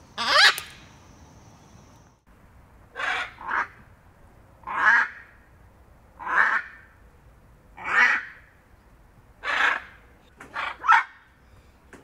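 Macaw squawking: about nine loud, short squawks, one every second and a half or so, some in quick pairs.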